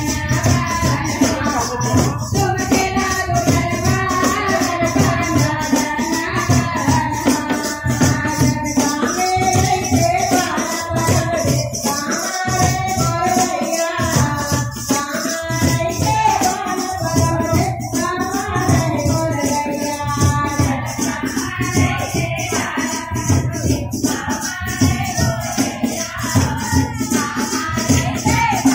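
Chhattisgarhi jas geet devotional folk song: a group of women singing to a two-headed barrel drum, over a rapid, steady jingling beat.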